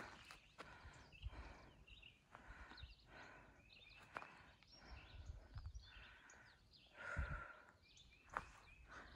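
Faint footsteps of a hiker on a trail, irregular soft steps and knocks, with a few small bird chirps.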